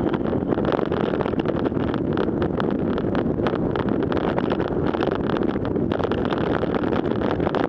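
Steady wind rush on the microphone of a bike-mounted camera moving at about 40 km/h, over the hiss and spatter of a road bike's tyres running through standing water, with many small crackles throughout.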